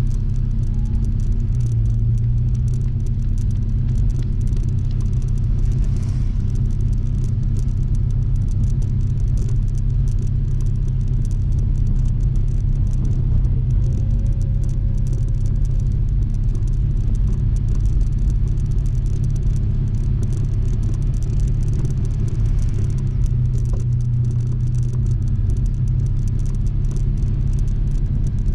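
Honda ADV160 scooter's single-cylinder engine running steadily on the move, with wind and road rumble on the camera.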